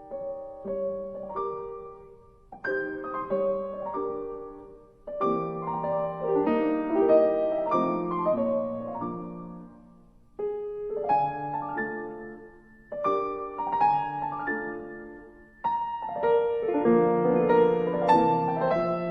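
Background piano music: slow phrases of chords, each struck and left to ring and fade before the next.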